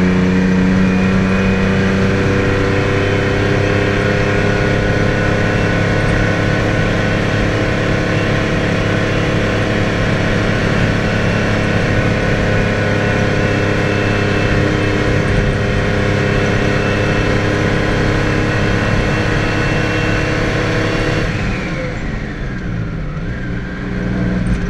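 Detroit Diesel 6V92 two-stroke V6 diesel in a 1980 GMC Brigadier dump truck, heard from inside the cab, pulling hard uphill under full load at steady revs. About 21 seconds in, the engine note falls away and drops in pitch.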